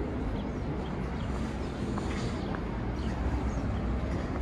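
City street ambience: a steady low rumble of traffic with faint voices of passers-by.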